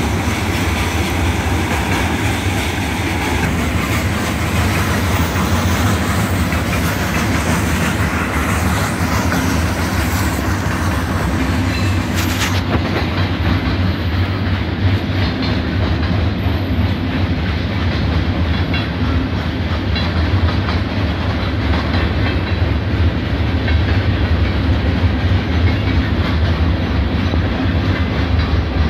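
Mixed freight cars of a manifest train (boxcars, tank cars, hoppers) rolling past at track speed: steel wheels running on the rails, steady and loud throughout.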